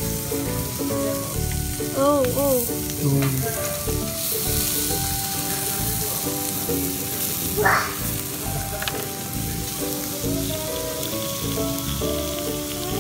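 Squid and prawns sizzling steadily on a hot grill pan over a portable gas stove.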